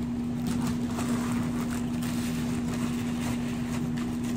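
Room air conditioner running with a steady hum and one strong low tone, with faint rustling from a plastic mailer bag and cardboard box being handled.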